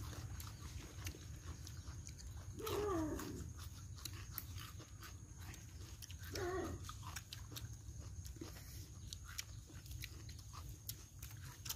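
People eating roast chicken with their fingers: soft chewing and lip-smacking clicks, with two short wavering voiced sounds, one about three seconds in and one past the middle.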